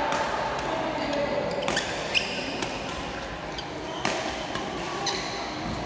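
Badminton rally: rackets striking the shuttlecock in a quick series of sharp cracks, about one every half second, echoing in a large hall, with a couple of short shoe squeaks on the court.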